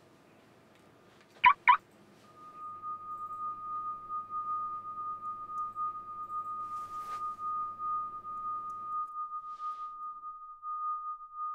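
Two quick, loud electronic chirps, then one steady high-pitched tone that holds on: a heart monitor's flatline, signalling death. A faint low hum lies under the tone and stops near the end, and a brief hiss comes about halfway.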